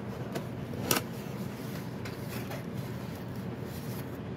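Cardboard mailer box being opened by hand: one sharp click about a second in as the tuck-in lid comes free, then faint handling ticks over a steady hiss.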